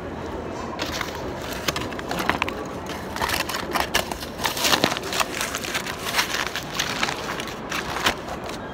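Aluminium foil crinkling in irregular crackles as it is pressed and folded by hand over a takeout food container, busiest around the middle.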